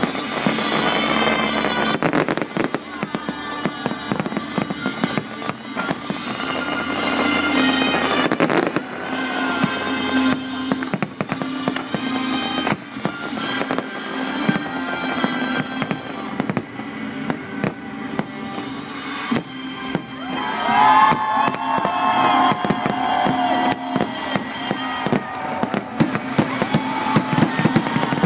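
Fireworks bursting and crackling in rapid, repeated bangs, over show music played through the park's loudspeakers.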